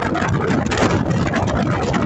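Wind rushing across a ship's open deck and buffeting the microphone, over the steady low rumble of the ship's engine.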